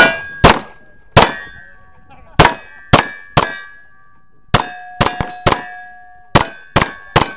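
Semi-automatic pistol shots fired in strings of three or four, about half a second apart within a string, each followed by the ringing clang of a struck steel plate target. The paced cadence comes with steady hits on the steel.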